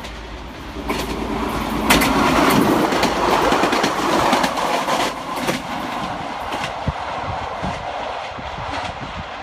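Elron Stadler FLIRT diesel multiple unit passing close at speed. Its wheels click rapidly over the rail joints as it goes by, louder for a few seconds, then the sound eases as it runs away down the line.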